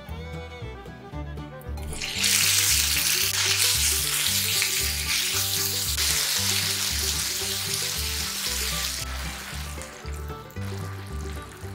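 Sliced pork sizzling as it stir-fries in a frying pan, starting about two seconds in and easing off near the end, over background music with a steady bass line.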